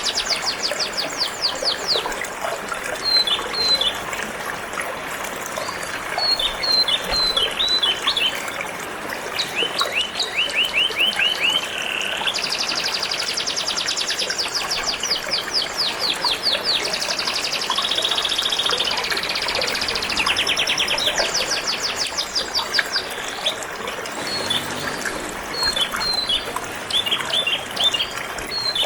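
Domestic canary singing: fast trills of rapidly repeated high notes and bursts of short chirps, with one held buzzy note partway through, over the steady rush of flowing water.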